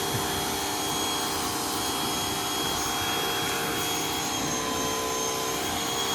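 Pressure washer running steadily, its motor and pump humming at a constant pitch under the hiss of the water spray as the truck's dirt is blasted off.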